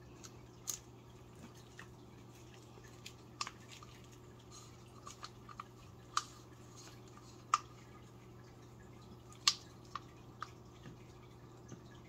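Scattered small clicks and taps of a plastic mixing cup and silicone resin molds being handled with gloved hands during a resin pour, with a faint low hum behind them.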